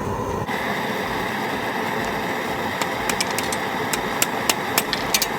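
Forge running with a steady roar, with a quick run of sharp clicks in the second half.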